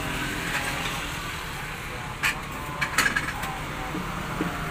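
Steady engine hum of road traffic, with a few sharp clanks of cookware being handled about two and three seconds in.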